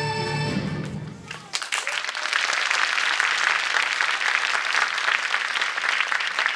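The held final chord of the music fades out in the first second or so, then an audience applauds with dense, steady clapping for the rest.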